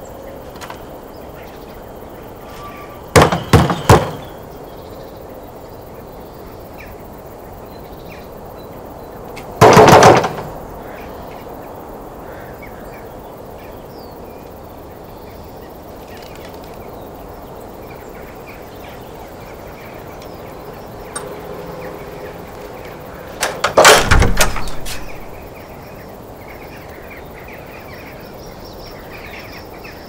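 Knocking on a wooden front door in three rounds: three sharp raps about three seconds in, a quick burst of knocks around ten seconds, and a longer flurry of knocks near twenty-four seconds. Between them only a quiet outdoor background with faint birds.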